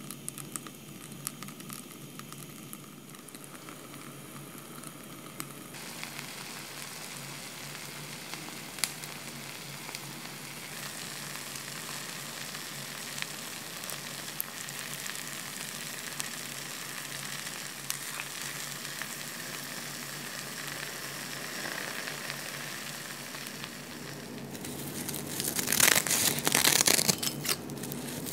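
Rice and toppings in an earthenware hot pot (ttukbaegi) sizzling steadily, with a few faint ticks. Near the end comes loud crinkling as a sheet of dry seasoned laver is handled and cut with a knife.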